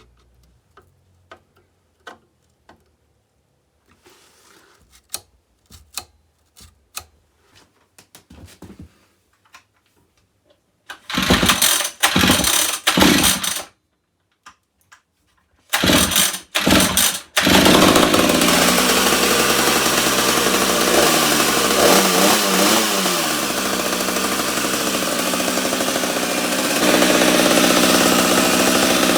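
A string of small clicks, then the restored 1987 chainsaw's two-stroke engine fires in two short bursts and dies before catching and running steadily, rising in speed once and getting louder near the end. This is its first start after a rebuild with new piston, rings and bearings.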